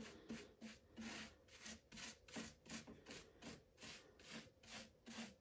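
Flat bristle paintbrush stroking sealer back and forth over a diamond-painted surface of tiny faceted drills. Faint, even brushing, about three strokes a second.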